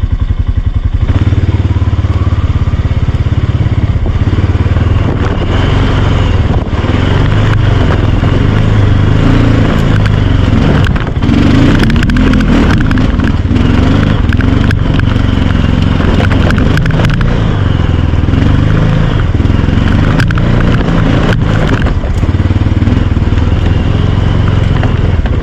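ATV engine running steadily under load as the quad climbs through the bush, louder from about a second in, with leaves and twigs crackling and snapping under the tyres.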